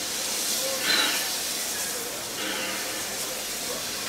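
Steam hissing steadily from NSWGR C32 class steam locomotive 3237 standing at the platform, with a louder gush of steam about a second in.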